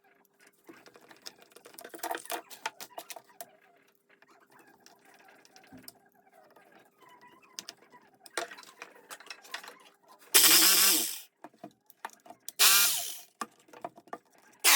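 Light clicks and taps of handling, then an electric breaker hammer's brushed motor run twice in short bursts, about a second and then half a second: test runs after repair of its worn carbon brush holders.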